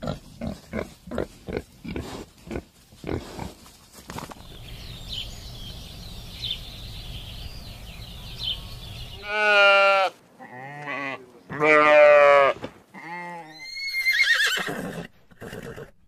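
A pig grunting in short bursts about twice a second, then a low steady hum with faint high bird chirps, then a horse whinnying four or five times with a wavering pitch.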